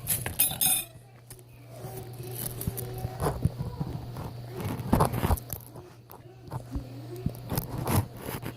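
Someone eating a runny fried-egg yolk: scattered mouth noises, knocks and clicks over a steady low hum.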